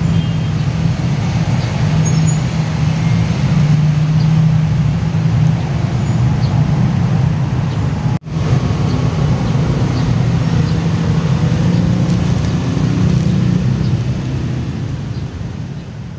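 Steady low rumbling noise, with a brief break about halfway through and fading away near the end.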